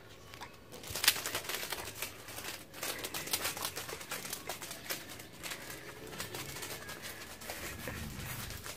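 Irregular crinkling and clicking of sticky packing tape stuck to a cat's paws as the cat walks, starting about a second in, with a sharp click at the start.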